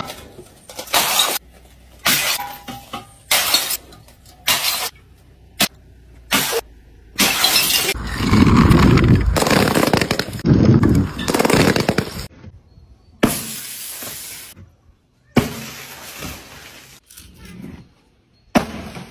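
Glass bottles being smashed one after another: a quick series of sharp shattering crashes, then about four seconds of louder continuous crushing and bursting, then a few more scattered crashes.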